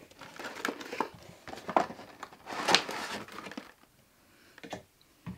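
Clear plastic figure packaging crinkling and crackling irregularly for about three and a half seconds as it is handled, then falling quiet apart from a few light clicks near the end.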